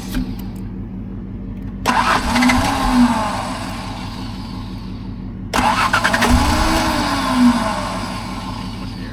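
A vehicle engine runs steadily, and about two seconds and five and a half seconds in it is revved briefly, its pitch rising and falling each time before it settles back.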